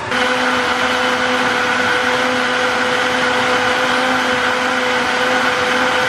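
Countertop blender switching on and running steadily at one speed, its motor whirring with a steady hum as it purées chopped tomatoes and water.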